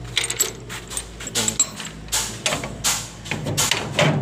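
Metal chain and latch on a steel truck cargo box clinking and clanking as they are handled and unfastened: a run of sharp metallic clinks and knocks.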